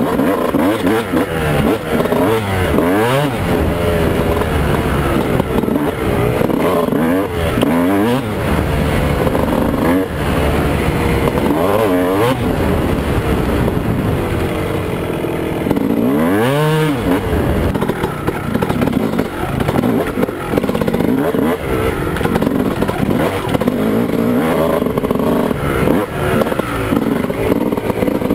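2001 Honda CR250's two-stroke single-cylinder engine, fitted with a Steahly 10 oz flywheel weight, revving up and down over and over as the bike is ridden along a trail, with one sharp rev about sixteen seconds in.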